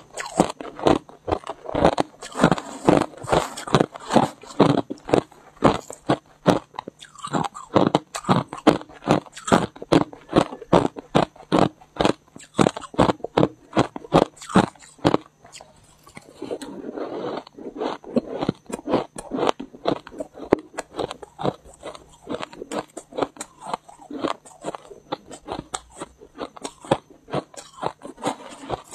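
Crushed ice being bitten and chewed close to the microphone: rapid, sharp crunches, several a second. About halfway through, a few seconds of denser, continuous crunching.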